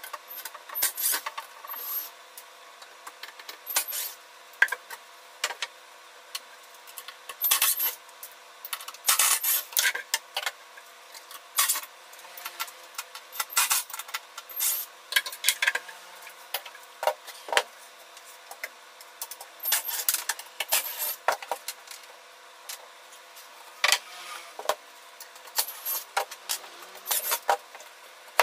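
Cordless screwdriver running in short bursts as it backs screws out of a particleboard cabinet, with clinks of loose screws and knocks and scrapes of the wooden panels being handled. The bursts come every second or two.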